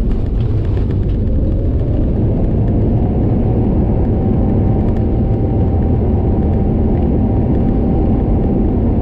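An Airbus A321neo's landing roll heard from inside the cabin: a loud, steady rumble of the aircraft running fast along the runway, with an engine whine that rises in pitch over the first few seconds and then holds steady.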